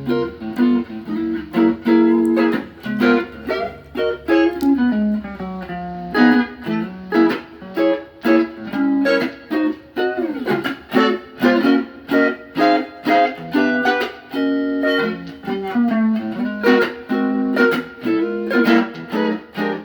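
Guitar playing a continuous run of plucked single notes and chords, with several string bends sliding the pitch.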